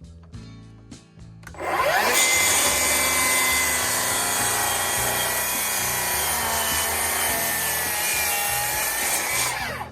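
Electric power tool working wood: its motor whine rises as it spins up about a second and a half in, it cuts steadily for about eight seconds, then the whine falls as it winds down near the end.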